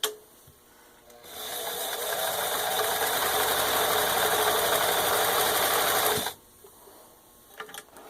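Necchi 535FA sewing machine running steadily at speed for about five seconds, sewing a zigzag stitch through four layers of denim, then stopping abruptly. A sharp click comes at the very start.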